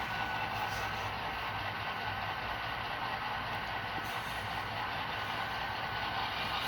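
Model diesel locomotives' Soundtraxx sound decoders playing a steady simulated diesel engine sound through their small speakers as the locomotives run along the track.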